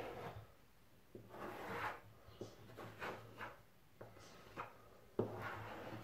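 Short rubbing and wiping strokes on a kitchen countertop, clearing excess silicone sealant from the joint between two worktop sections. A sharp knock about five seconds in.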